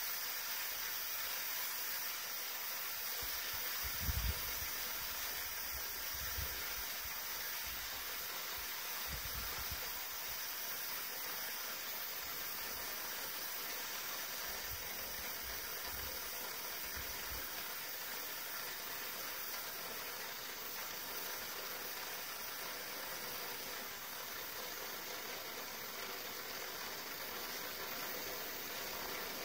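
Gas cartridge blowtorch burning with a steady hiss. A few soft low thumps come through in the first half.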